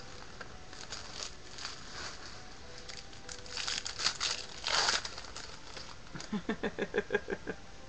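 Foil trading-card pack wrappers crinkling and tearing as Panini Contenders packs are opened, loudest around the middle. Near the end comes a quick run of about ten short pitched pulses.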